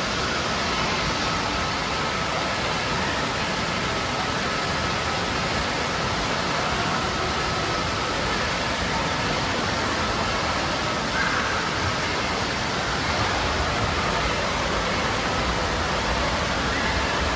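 Steady rush of falling and splashing water from an indoor water park's slides and water features, an even unbroken noise, with faint voices mixed in.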